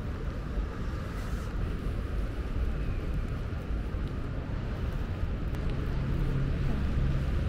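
Low, steady rumble of city traffic on wet streets, with a steady low hum joining about three-quarters of the way through.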